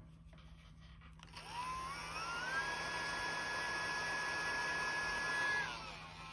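Small high-speed electric motor spinning up with a rising whine and an airy hiss about a second and a half in, holding a steady high whine, then winding down near the end.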